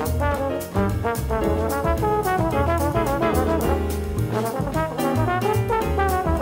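Jazz trombone solo with band accompaniment: the trombone plays a busy line of quick notes with slides, over a stepping bass line and steady drum strikes.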